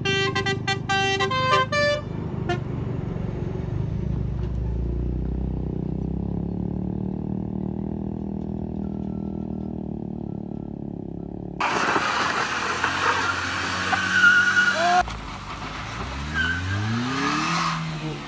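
A multi-tone truck horn blaring in short pulses, then a heavy truck's diesel engine running steadily. About twelve seconds in the sound cuts to louder mixed noise, and near the end an engine revs up, rising in pitch again and again.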